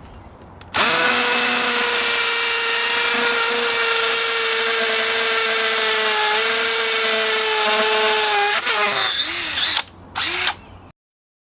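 DeWalt DC970 18-volt cordless hammer drill running in hammer-drill mode, boring into a paver with a masonry bit. It starts about a second in, runs steadily at full speed for about eight seconds, winds down, then gives a short second burst near the end.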